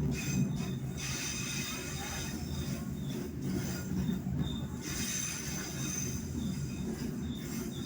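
Siliwangi passenger train running on the rails, heard from aboard: a steady low rumble with high-pitched wheel squeal coming and going.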